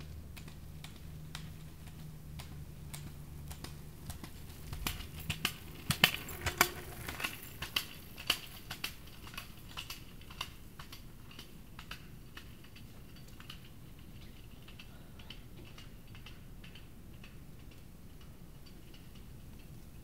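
An irregular run of sharp clicks and ticks, thickest and loudest in a cluster about five to nine seconds in, then thinning out. A low hum underlies the first five seconds.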